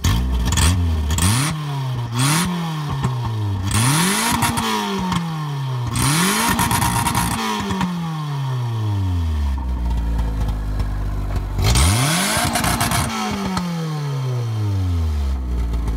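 A 1994 Dodge Colt's four-cylinder engine free-revved repeatedly, each rev rising sharply and sinking back more slowly, then settling to idle before one last rev about twelve seconds in. It revs cleanly, and the owner says it runs mint.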